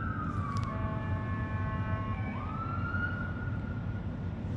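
Emergency vehicle siren wailing, its pitch sliding slowly down and then rising again about halfway through. A second siren tone overlaps for a second or two, over a steady low rumble.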